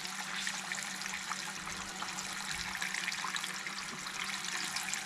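Hot frying oil in a pan sizzling and crackling steadily after a batch of fish has been fried, over a faint low hum.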